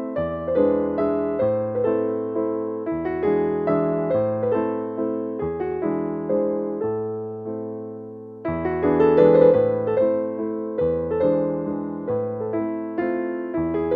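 Background piano music: a gentle keyboard piece of struck notes that ring and fade, with a short pause a little over eight seconds in before the next phrase starts louder.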